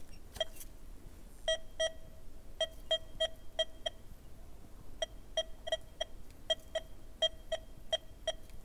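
Metal detector giving short beeps, all at the same pitch, about three a second in runs with a pause around four seconds in, as the coil is swept back and forth. It is picking up a small buried target of about a gram.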